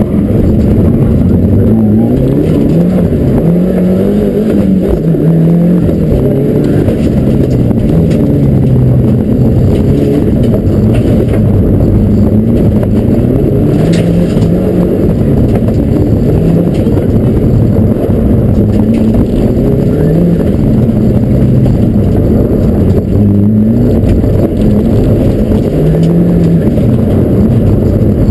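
Mitsubishi rally car engine at full effort, loud inside the caged cabin, revving up and dropping back again and again as it is driven hard along a gravel stage.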